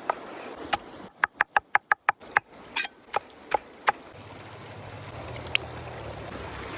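Sharp knocks over a steady hiss, with a fast run of about eight strikes, roughly six a second, a little over a second in, then a few single knocks. A low hum comes in past the middle.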